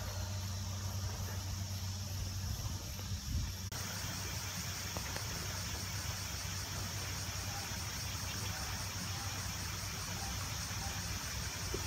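Field insects, crickets or katydids, trilling steadily in the grass: a continuous high buzz with a fast, even pulsing chirp above it. Under it runs a steady low hum, with a brief low thump about three seconds in.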